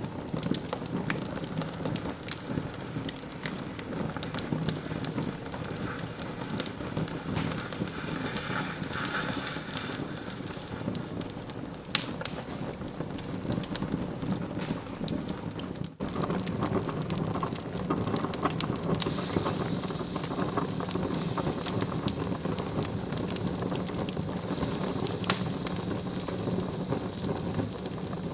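Wood fire crackling in a fireplace: a steady stream of small pops and snaps over a low hum, with one louder pop about 25 seconds in. The sound drops out for an instant about 16 seconds in.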